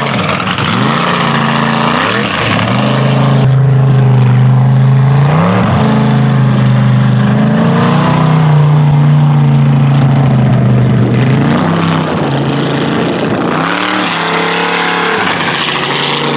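Mega mud truck's engine revving up and dropping back several times as it accelerates and turns across dirt.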